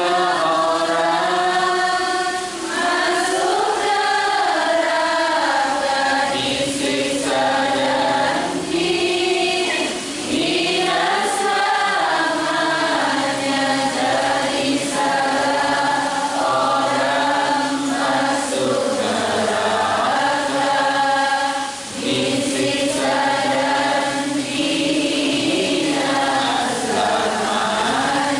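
A man chanting a devotional song in a slow, melodic style, with long held notes that waver in pitch and short breaks between phrases.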